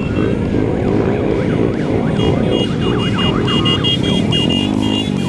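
A large crowd of motorcycles running together, with horns honking in pulses and a quick siren-like yelp rising and falling over and over for a couple of seconds. A deeper horn sounds near the end.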